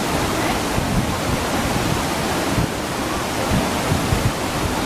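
Mountain stream rushing over rocks, a steady full water noise, with scattered short low thumps underneath.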